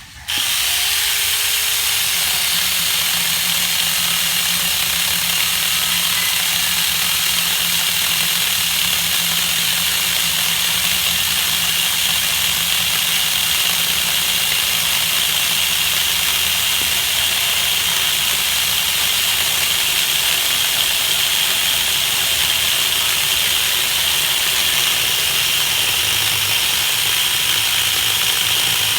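Chainsaw running steadily and loudly, starting suddenly at the very beginning and holding an even note without revving up or down.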